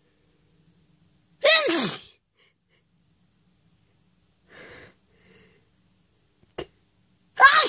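Two loud, forceful sneezes in a sneezing fit brought on by flowers. The first comes about a second and a half in; the second breaks out right at the end. A short breath and a small click fall between them.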